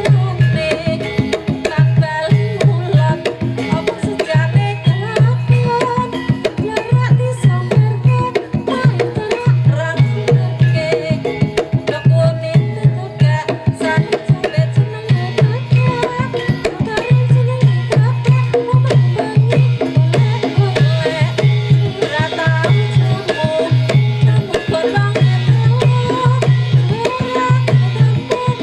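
Javanese gamelan music for a jaranan horse-trance dance: kendang hand drums beating fast, dense strokes over melodic metallophone lines, with a deep low note recurring every second or two.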